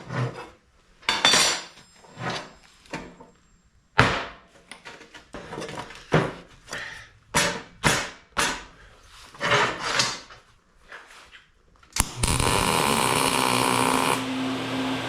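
Irregular knocks and clatters of metal parts and tools being handled and set down. About twelve seconds in, an electric power tool starts suddenly and runs steadily with a held hum.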